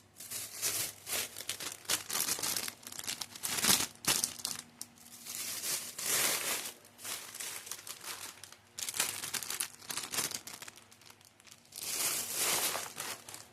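Plastic snack wrappers crinkling as they are handled and sorted, in irregular bursts of crackle with several louder stretches between quieter moments.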